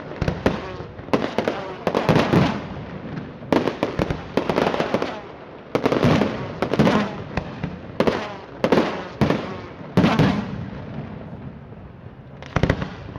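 Fireworks display: aerial shells bursting in quick succession, about one sharp bang a second, each followed by a fading crackle. The bangs thin out for about two seconds near the end before another burst.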